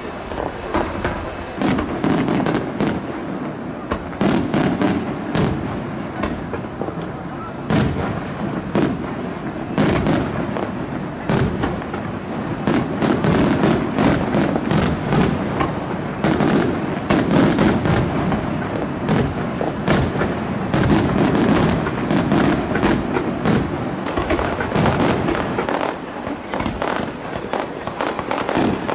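Fireworks display: a dense run of sharp cracks and pops over a continuous low rumble, with shells bursting one after another.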